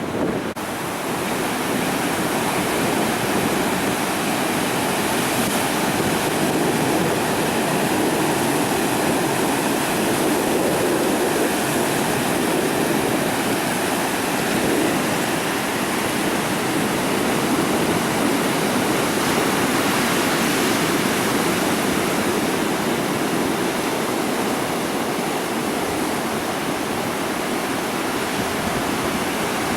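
Steady rush of ocean surf, an even, unbroken noise.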